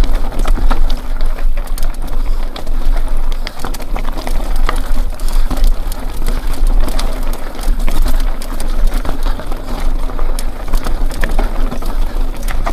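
Mountain bike rattling and clattering as it descends a rough, bumpy rocky trail, with many sharp clicks and knocks over a steady low rumble.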